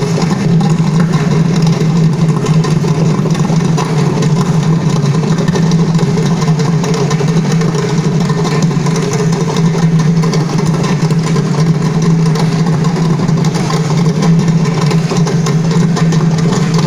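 Ensemble of mridangams played together in a continuous stream of fast strokes over a steady low tone.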